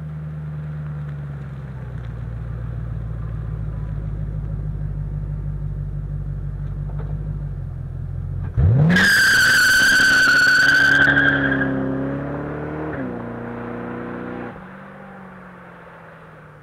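Lincoln Town Car's V8 running close by, then a hard launch about eight and a half seconds in. The engine revs up sharply and the rear tyres spin and squeal loudly for about three seconds. The engine note then steps down once and fades as the car pulls away.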